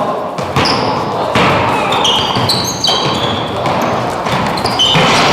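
Basketball game in an echoing gym: sneakers squeak repeatedly in short high chirps on the court floor, and the ball bounces, over a background of players' voices.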